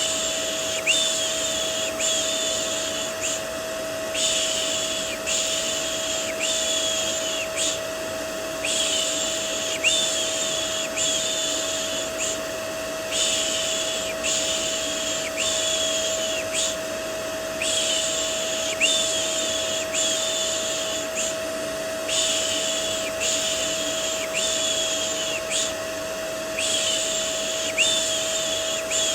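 Rhythmic "shh, shh" shushing, a little more than one shush a second in runs of about five with brief pauses between runs, laid over the steady hum and whine of a running vacuum cleaner. It is a looped white-noise mix for soothing a baby to sleep.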